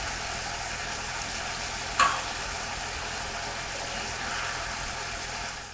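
Mutton mince with onion and garlic sizzling steadily in a frying pan just deglazed with white wine, stirred with a wooden spatula. One sharp click about two seconds in, and the sizzle fades near the end.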